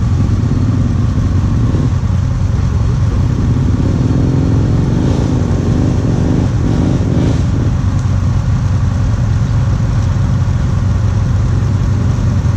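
ATV engine idling steadily close by, with another engine revving up and down for a few seconds about midway.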